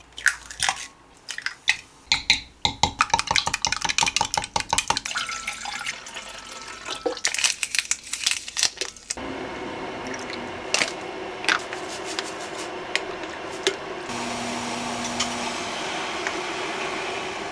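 A quick run of small clicks and clatters, then from about nine seconds in a steady rush like running water.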